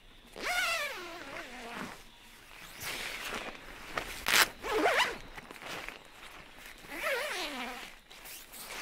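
Tent door zipper being pulled several times: a long zip about half a second in, a sharper, louder one near the middle, and another near the end.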